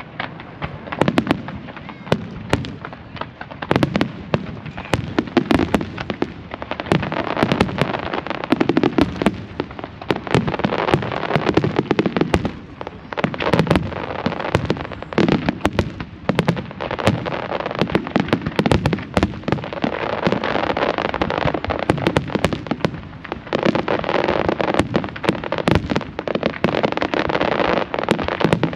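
Large aerial fireworks display: a continuous barrage of shells bursting in quick succession, sharp bangs over steady crackling.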